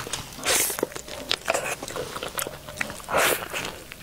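Close-miked crunching bites into a thick crumb-coated fried chicken drumstick. Two loud crunches come, about half a second in and about three seconds in, with small crackles and chewing between them.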